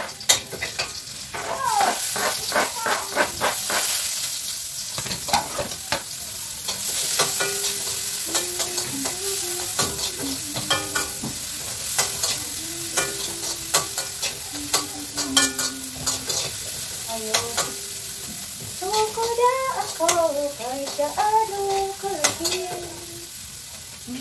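Ground pork sizzling as it fries in oil in a pan, with a metal spatula clicking and scraping against the pan as it is stirred.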